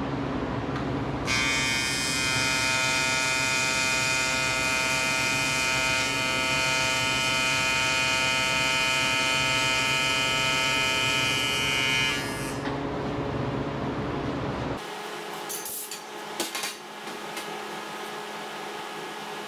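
Electric welding arc on aluminum, a loud steady buzz that starts about a second in and cuts off suddenly after about eleven seconds. A low machine hum runs beneath it and stops a couple of seconds after the arc, followed by a few light metal clinks.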